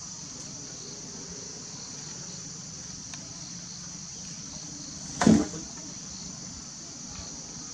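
Steady high chirring of insects such as crickets, with one short, loud sound about five seconds in.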